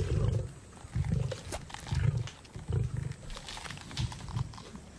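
Lions growling over a kill as they feed: short low growls, about one a second, with sharp clicks of feeding in between.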